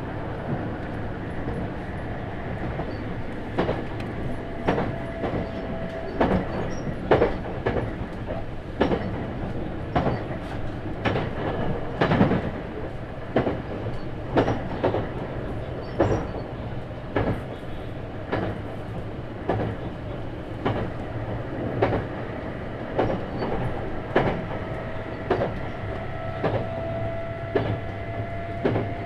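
Running sound inside the motor car of a 651-series electric express train in motion. Sharp rail-joint clicks come about once a second over a steady rumble, and from about halfway through a faint whine from the MT61 traction motors rises slowly in pitch.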